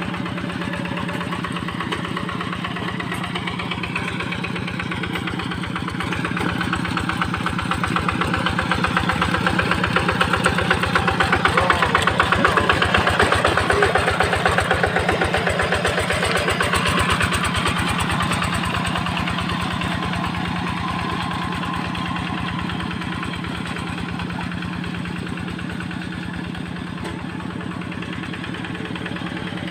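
Paddy-field tractor engine running steadily with rapid, even firing beats. It grows louder toward the middle and eases back again.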